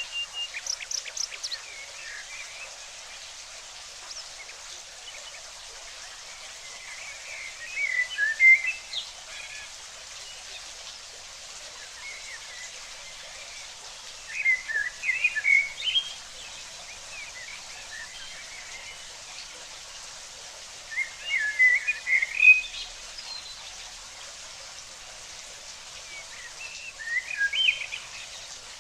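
A songbird singing short, rapid, chirping phrases, four of them spaced about six or seven seconds apart, with a quick run of chirps at the very start, over a steady hiss of water.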